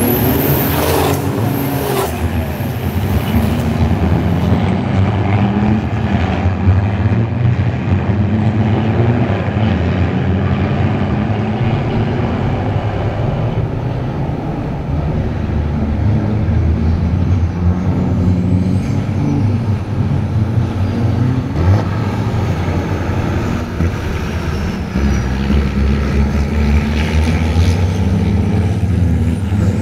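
A pack of racing trucks' diesel engines running hard on a wet track. Their pitch repeatedly climbs and drops back with each gear change, over a steady hiss of tyre spray.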